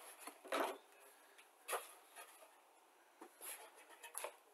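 Cardboard model-kit box being handled and its lid lifted off: a few short, quiet scrapes and rustles.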